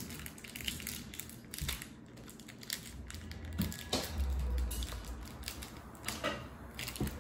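Close-up chewing of gummy candy: many small, irregular mouth clicks and smacks, with a soft low thump about four seconds in.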